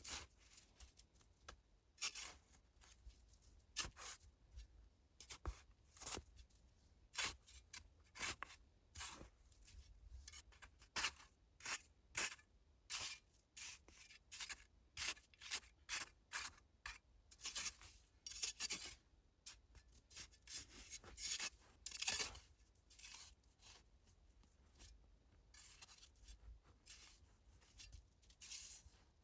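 A run of short, crisp scraping strokes, irregular at roughly one to three a second, with a denser cluster about two-thirds of the way through.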